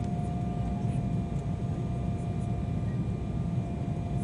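Steady cabin noise inside an Embraer 190 airliner in flight: a deep, even rumble of airflow and its two GE CF34 turbofan engines, with a thin steady whine above it.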